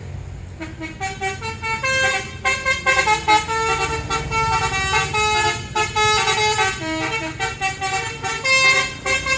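Tour bus's Basuri multi-tone telolet horn playing a fast tune of short, stepping notes, over the steady low running of the bus engine.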